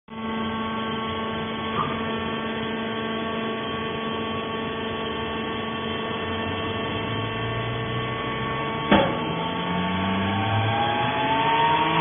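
Vertical hydraulic fiber baler's motor and pump running with a steady hum of several held tones. A sharp knock about nine seconds in, and a rising whine over the last few seconds.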